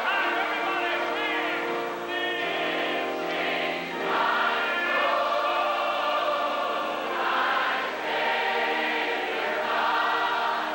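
Large mass choir singing a hymn in long held chords, phrase after phrase, with brief breaks between phrases.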